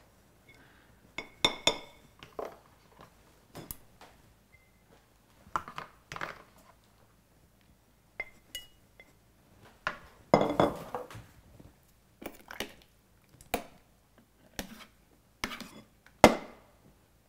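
Metal serving spoon dishing up couscous: irregular clinks and scrapes against ceramic plates and the steaming dish, every second or so, a few with a short ring.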